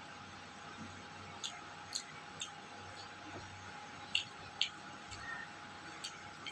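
Eating sounds: about six short, soft clicks and smacks, spaced irregularly over a steady background hiss.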